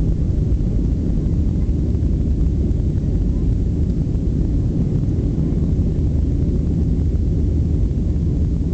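An AirTran Boeing 737's jet engines at takeoff power, heard from inside the cabin: a loud, steady, low rumble through the takeoff roll and liftoff.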